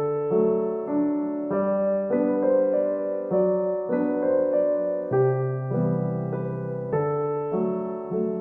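Background piano music: soft electric-piano chords over a bass line, changing about every half second.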